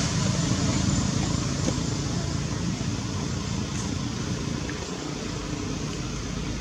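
Steady low rumbling background noise with no distinct events, slowly fading.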